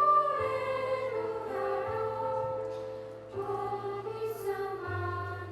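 A choir singing long, slowly changing notes over a steady low accompaniment.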